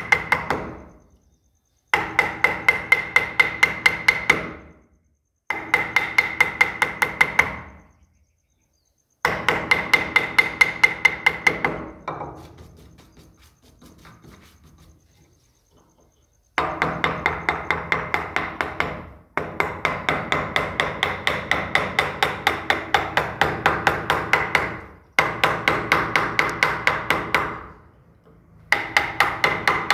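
A mallet driving a steel carving gouge into wood in quick runs of about five blows a second, each run lasting a few seconds with short pauses between, and a high ringing note under the blows. There is a longer, quieter gap near the middle.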